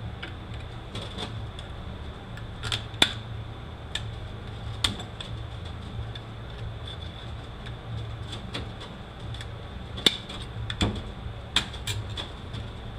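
Irregular metallic clicks and clinks of a Toyota U760E transmission's snap ring and clutch parts being worked loose and handled with tools, the sharpest about three seconds in and again around ten to twelve seconds in. A steady low hum runs underneath.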